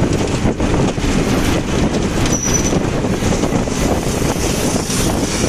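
Motorcycle taxi running along the road, heard from inside its enclosed cab: a loud, steady engine rumble mixed with road and wind noise.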